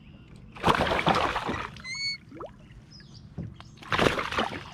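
Water splashing in two loud bursts, about a second in and again near the end: a hooked largemouth bass thrashing at the surface beside the kayak.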